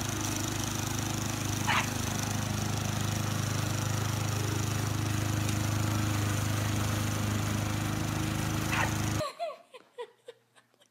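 Gasoline walk-behind lawn mower engine running steadily, with two short high-pitched sounds over it, about two seconds in and near the end. The engine sound cuts off abruptly about nine seconds in, leaving only faint clicks.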